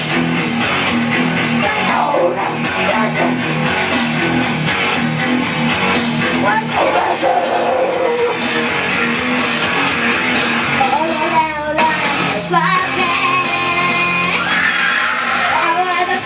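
Live band music with guitar and girls singing, with a brief break about two thirds of the way in before the song picks up again.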